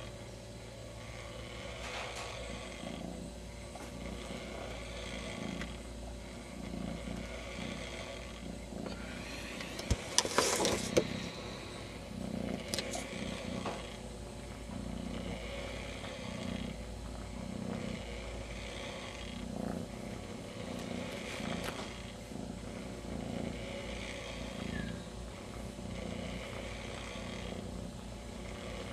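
Kitten purring, a soft low purr that swells and fades about once a second with its breathing. A short, louder rustle breaks in about ten seconds in.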